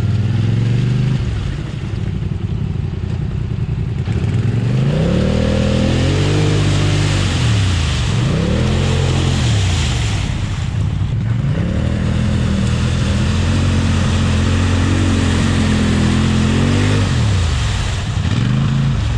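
ATV engine revved hard in repeated surges, rising and falling; the last surge is held for several seconds before dropping. The machine is trying to power through thick mud and lacks the traction to get out.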